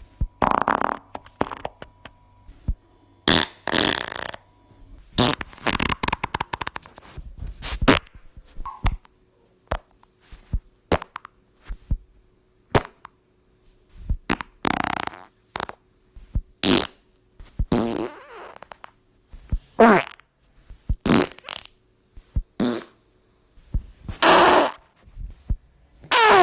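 A rapid succession of fart sounds, one after another: some short pops, some long buzzy ones and sputtering rattles.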